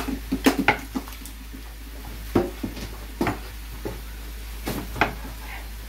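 Kitchen knife cutting tomatoes on a wooden cutting board: a string of short, irregular knocks of the blade hitting the board.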